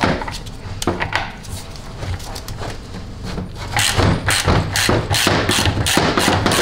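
Ratchet and socket turning a pressure switch out of a 700R4 transmission valve body: a couple of metal knocks as the socket goes on, then from about four seconds in a quick, even run of ratchet clicks, about four or five a second.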